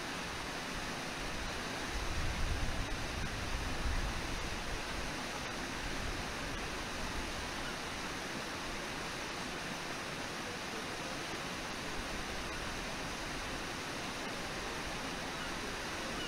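Steady rush of the Brooks River flowing fast over its shallows. A brief low rumble rises under it about two seconds in.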